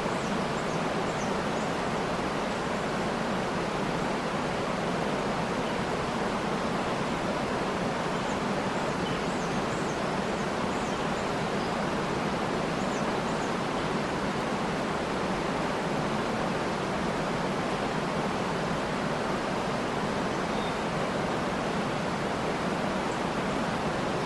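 Waterfall rushing steadily, with faint, scattered high bird chirps now and then.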